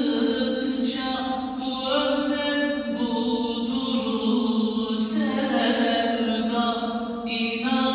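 A man's solo unaccompanied voice chanting an Islamic kaside, holding long ornamented notes that glide slowly from pitch to pitch, in a stone mosque prayer hall.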